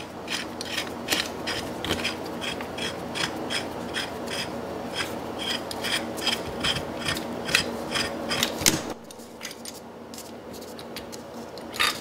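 A pulley puller's forcing screw is being cranked by hand to press the crankshaft out of a DLE 55 two-stroke engine's aluminium crankcase. It makes an even run of clicks, about three a second, over a grinding rub, and stops about nine seconds in. Near the end comes a short metal clink.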